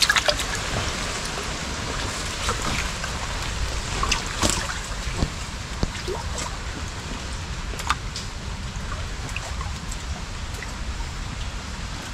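Shallow canal water trickling and sloshing, with small splashes now and then, over a low steady rumble.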